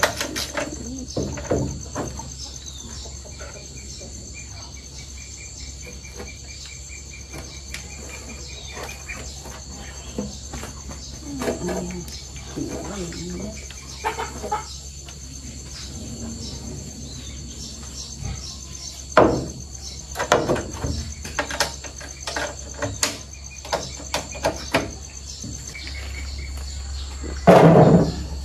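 Steady high chirring of insects in the background, overlaid by scattered, irregular knocks and thuds; the loudest is a heavy thump near the end.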